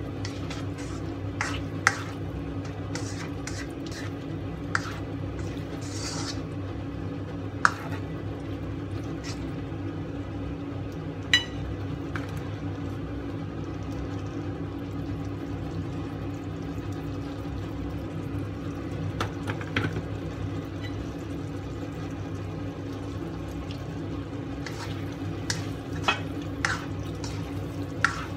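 Spatula scraping and tapping in a nonstick wok as eggplant and minced meat are stir-fried, in short clicks and scrapes that thin out through the middle and pick up again near the end. A steady low hum runs underneath.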